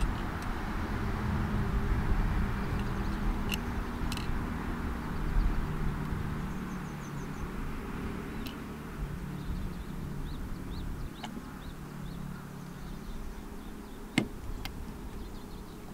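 Outdoor ambience with a low rumble that slowly fades, faint bird chirps, and a few sharp knocks from gear being handled on an SUV's roof, the loudest near the end.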